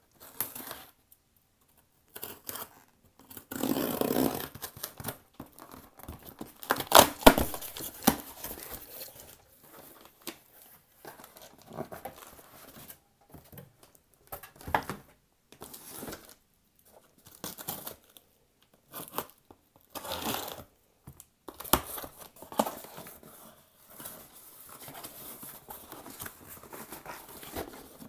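A package being torn open by hand, its wrapping tearing and crinkling in irregular bursts, loudest about seven seconds in.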